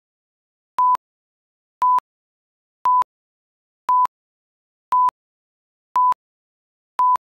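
Broadcast slate countdown beeps: a short, steady single-tone beep once a second, seven in all, each marking a number of the countdown to the start of the programme.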